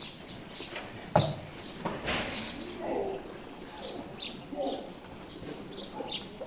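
Birds chirping repeatedly, with some lower cooing calls. There is a sharp knock about a second in and a short rush of noise about two seconds in.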